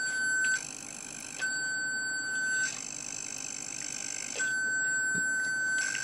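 Electronic buzzer of a light-triggered alarm circuit sounding a continuous high tone, switching every second or so between a clean tone and a harsher, buzzier sound.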